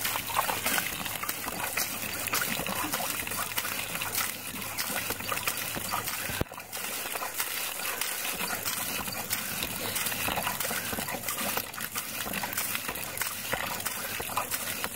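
Water gushing from the spout of a lever-handled hand well pump as the handle is worked up and down, with short clicks and knocks among the splashing.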